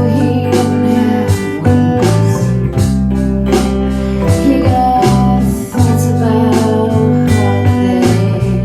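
A band playing a song: guitars over sustained bass notes with a steady beat, between sung lines.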